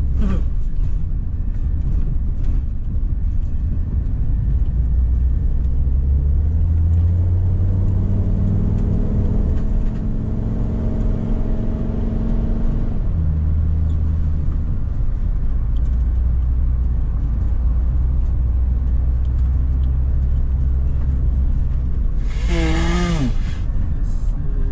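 Steady engine and road rumble inside a moving ambulance's cab. The engine note climbs as it accelerates and drops off about thirteen seconds in. Near the end a short, loud siren burst wavers up and down.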